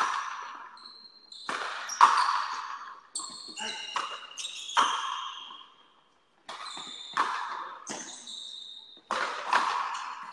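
Frontenis rally: a rubber ball cracking off strung rackets and the frontón's wall, about a dozen sharp hits, each echoing and dying away, with a brief lull about six seconds in.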